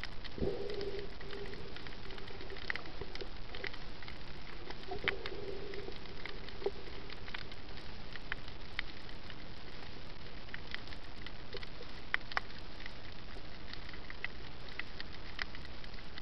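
Underwater reef ambience picked up by a submerged camera: a steady hiss dotted with scattered sharp clicks and crackles. A brief low hum comes in twice, near the start and about five seconds in.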